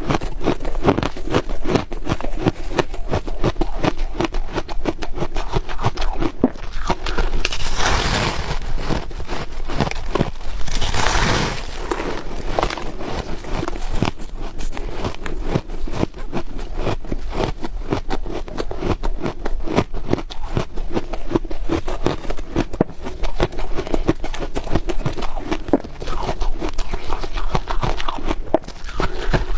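Close-miked chewing of crunchy ice: a rapid, dense run of cracking and crunching, with two fuller, harder bites about eight and eleven seconds in.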